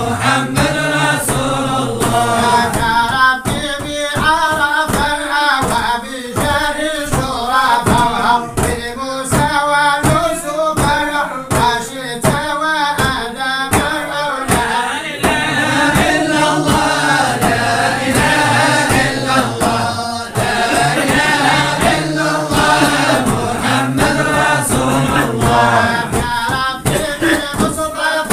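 A group of voices singing a devotional chant together, with a steady beat of sharp percussive strokes.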